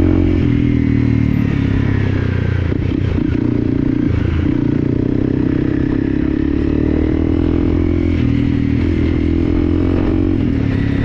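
Off-road motorcycle engine running steadily on a dirt track, its pitch dipping and picking up again a couple of times, with a few short knocks from about two to four seconds in.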